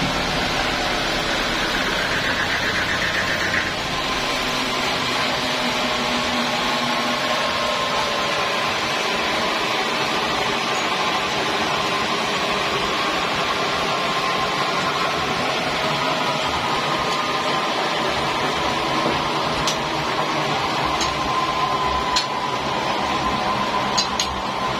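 Sawmill machinery running steadily, with a low hum dropping away about four seconds in and a few sharp clicks near the end.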